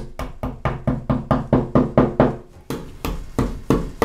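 Club hammer rapidly tapping plastic wall anchors into holes drilled in ceramic wall tile. Quick, light knocks come about six a second, with a short break a little past the middle.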